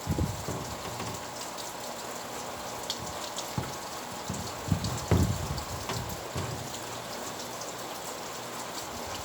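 Steady rain falling, with many single drops ticking on a surface and a few dull low thumps, the strongest about five seconds in.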